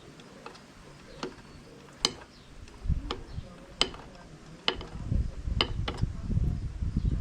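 Irregular sharp metal clicks and clinks, roughly one a second, over low handling thuds: hand tools and bolts working on the steel cover plate of a finish mower deck.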